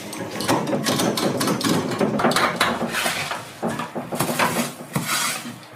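Metal handcuffs rattling and clicking in quick, irregular bursts as they are shaken and worked.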